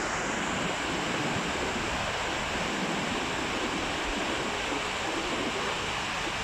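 Waterfall's water falling and splashing, a steady, even rush of noise.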